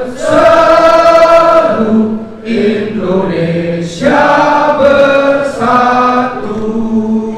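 A group of men singing a song together in unison, holding long notes phrase by phrase, with short breaks between phrases about two and four seconds in.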